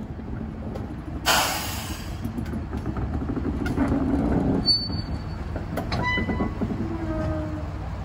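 Diesel shunting locomotive running steadily as it moves a Sorefame passenger coach slowly through the yard. A loud burst of air hiss comes about a second in, and a few short high squeals follow in the second half.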